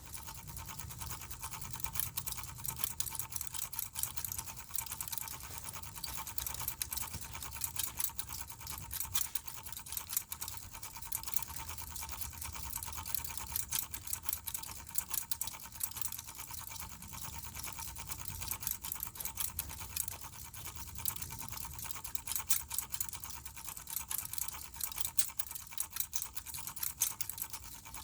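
Mainstays hugger ceiling fan running, with a steady motor hum and a thin whine over a fast, continuous crackling rattle.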